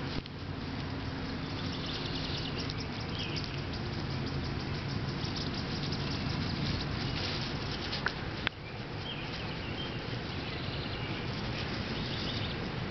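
Outdoor yard ambience: a steady low rumble and hiss, with a few faint high chirps and a sharp click about eight seconds in.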